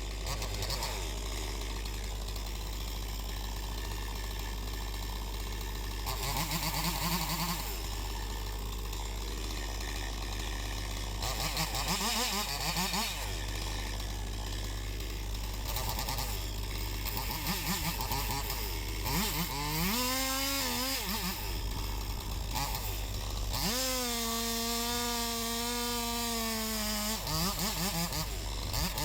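Chainsaw running over a steady low engine hum, its pitch rising and falling as it is revved several times, and held high for a few seconds near the end.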